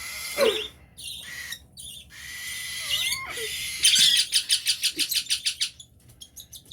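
Hand-fed parrot chicks giving harsh begging cries, including a fast run of pulsed calls, about seven a second, near the middle.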